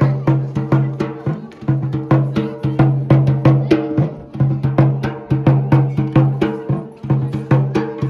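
Dhol beaten in a fast, even rhythm of about five strokes a second, its low drumhead ringing on between strokes.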